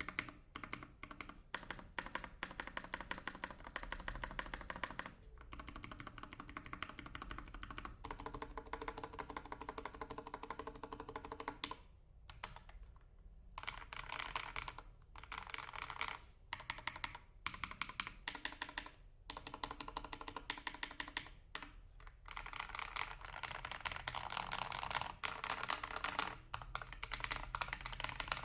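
Typing on a Royal Kludge RKG68 mechanical keyboard with KTT Kang White V3 linear switches and PBT keycaps: a fast, dense stream of deep, thocky keystrokes, broken by several short pauses.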